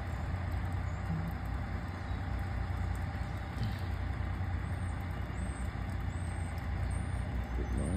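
Diesel locomotive engine idling steadily with a low hum. A few short high chirps come in the second half.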